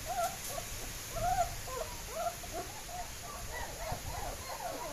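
Several German Shepherd puppies whining and whimpering in short, rising-and-falling cries that overlap and come thicker toward the end.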